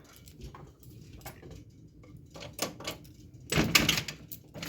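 Front door being worked open: small clicks and knocks from the lock and handle, then a louder rush of noise about three and a half seconds in as the door opens.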